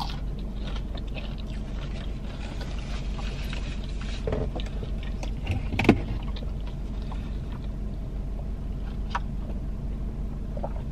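Steady low hum of a parked car running, heard from inside the cabin, with a few faint mouth and eating sounds and one sharp click about six seconds in.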